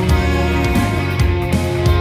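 Loud rock music with electric guitar and a pounding drum beat.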